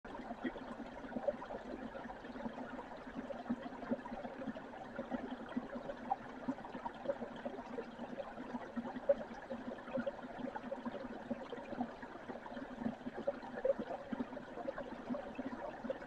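Small shallow stream flowing over and around rocks: a steady trickle with many small gurgles and plops.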